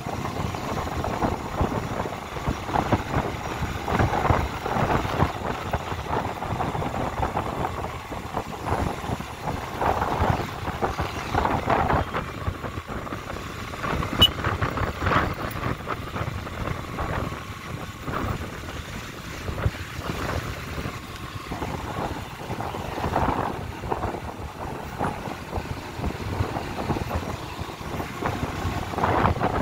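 Motorbike running on the move, with continuous engine and road noise and some wind on the microphone.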